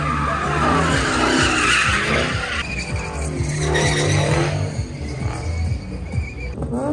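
Car doing a burnout and donuts: the engine revs up and down while the tires squeal and skid on the pavement, loudest in the first couple of seconds.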